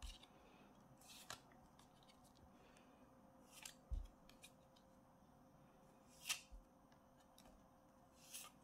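Cardboard Harry Potter trading cards being slid off a hand-held stack one at a time, each making a short, faint papery swish every second or two. The loudest swish comes about six seconds in, and there is a soft thump near four seconds.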